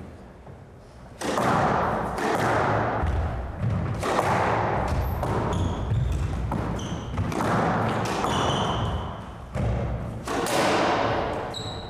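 Squash rally: the ball cracking off racquets and walls every few seconds, each hit echoing in the court, with short high squeaks of court shoes on the wooden floor.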